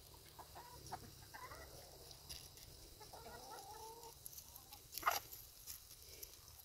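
A flock of chickens clucking softly, with one longer drawn-out call about three seconds in. A single sharp click about five seconds in is the loudest sound.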